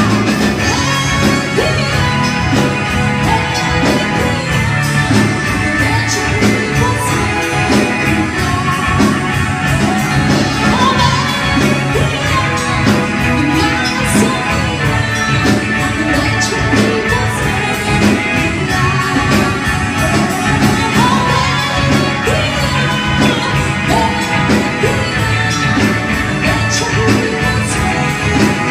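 A woman singing into a microphone over loud amplified band music with a steady beat.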